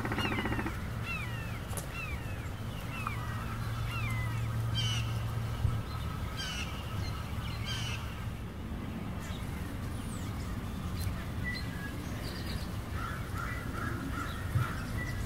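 Wild birds singing and calling outdoors: a run of quick down-slurred whistled notes, about two a second, for the first few seconds, a harsh rasping call right at the start, and scattered chattering calls later on. A low steady rumble sits underneath for roughly the first six seconds.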